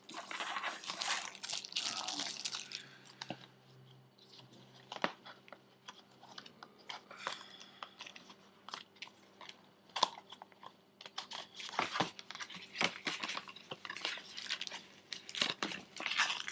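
Tablet packaging being handled and unpacked: rustling and crinkling, with scattered clicks and taps. The rustling is busiest in the first couple of seconds and again over the last few seconds.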